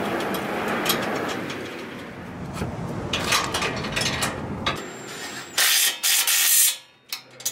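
Socket ratchet wrench clicking as bumper mounting nuts are run onto their bolts, among small metal clinks of the hardware being handled; the loudest stretch of ratcheting comes about six seconds in.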